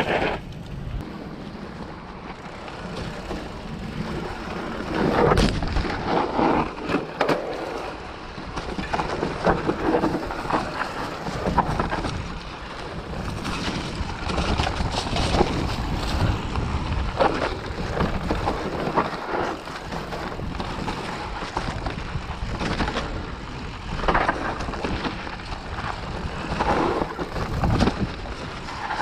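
Mountain bike riding down a dry dirt trail covered in fallen leaves: tyres rolling and crunching over leaves and dirt, with irregular knocks and rattles as the bike jolts over bumps and roots, and wind rushing on the microphone.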